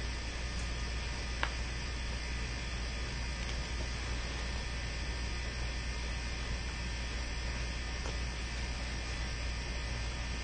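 Steady electrical hum with a low drone and a thin even hiss, unchanging throughout, and one faint click about a second and a half in.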